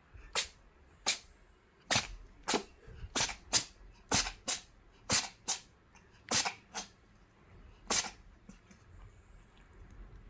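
A cat sneezing over and over, about a dozen short, sharp sneezes in the first eight seconds, many of them in quick pairs.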